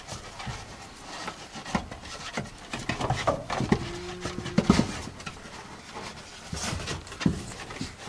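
Kelpie puppy moving about on a straw-strewn wooden floor: scratchy paw steps, straw rustling and small knocks against the boards, with a brief steady whine a little before the middle.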